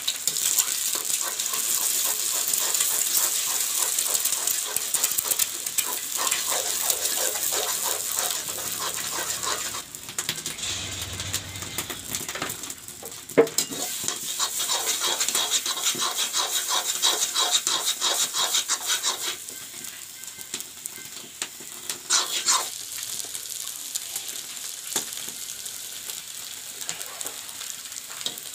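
Eggs sizzling in hot oil in a small wok while a metal spatula scrapes, chops and stirs them into a scramble. There is one sharper knock of the spatula about halfway through, and the sizzle is quieter for the last several seconds.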